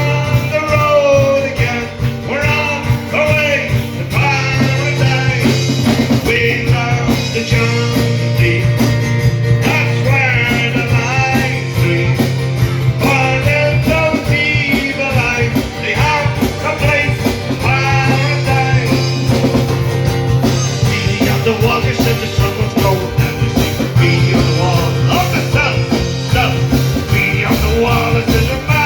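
Live band music with a singer over guitar, bass and a steady beat.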